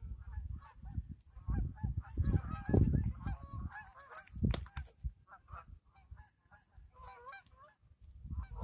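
Geese honking: several runs of short, quick honks over a low rumble.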